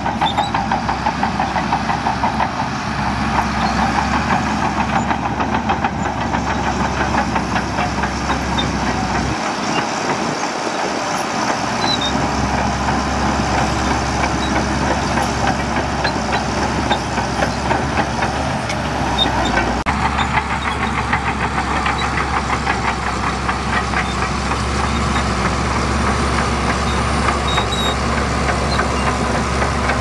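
Shantui DH17C2 crawler bulldozer's diesel engine running steadily under working load. Its low rumble dips briefly about ten seconds in.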